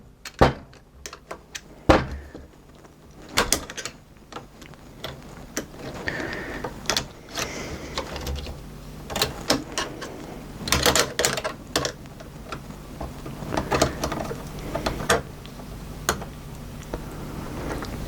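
Small plastic and metal parts of a VCR cassette loading mechanism clicking, tapping and knocking at irregular intervals as they are handled and fitted back together by hand, over a faint steady low hum.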